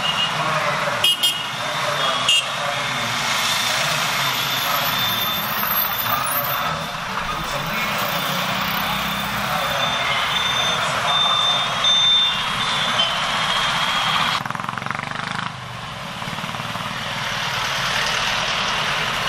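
Steady road traffic at a busy roundabout: motorbikes, scooters and cars running past, with a bus driving close by near the end. A couple of short sharp clicks come in the first few seconds.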